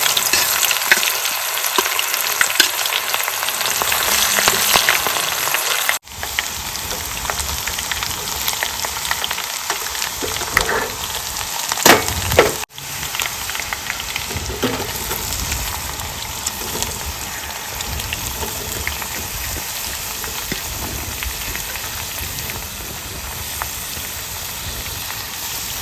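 Chopped garlic and chillies frying in hot oil in a pan, a steady crackling sizzle. It cuts off abruptly twice, at about six and thirteen seconds, and resumes each time.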